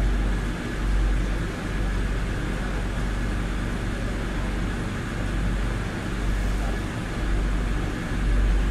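Madrid Metro Line 5 train running through a tunnel, heard from inside the carriage: a steady rumble of wheels on rail, strongest in the deep low end, swelling and easing slightly.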